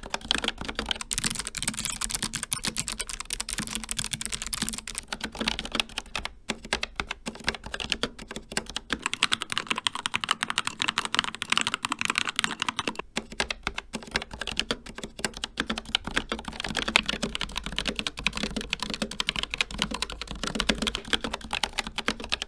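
Fast, continuous typing on a succession of mechanical keyboards. It starts with the Logitech G915's GL Clicky switches, moves to a Keychron K2 with Gateron Red switches, and ends on an Asus ROG Strix Scope RX with ROG RX Red switches. The key clatter changes character at each switch-over.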